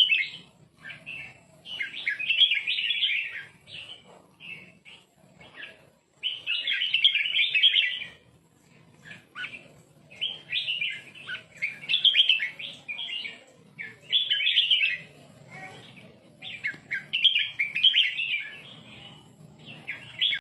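Red-whiskered bulbul singing: a run of bright, chirping song phrases, each one to two seconds long, separated by short pauses.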